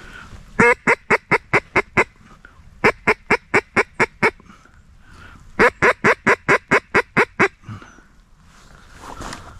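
Hunter's cocobolo duck call blown in three runs of loud quacks, each run about seven to nine notes at roughly four a second, with short pauses between, calling to passing ducks.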